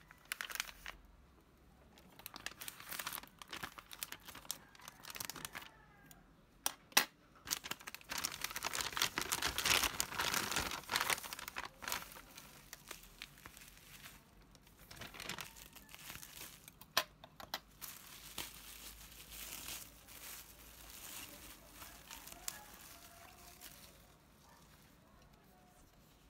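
Plastic packaging being handled and opened: a plastic mailer bag and bubble wrap crinkling and rustling, with tearing and sharp crackly clicks. It is loudest about a third of the way in and dies down near the end.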